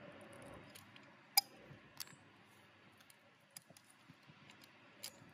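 Manual caulking gun applying sealant, its trigger and plunger rod giving a few sharp, scattered clicks, the loudest about a second and a half in.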